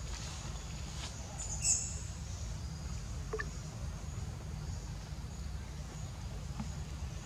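Outdoor background: a steady low rumble with a faint high insect buzz, broken by a sharp click a little under two seconds in and a brief squeak about halfway through.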